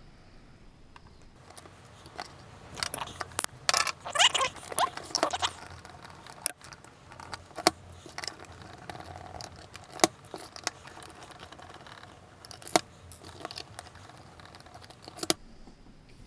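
Small screws being undone from a lipo charger's case: metallic scraping and clinking, busiest a few seconds in, then single sharp clicks every two to three seconds.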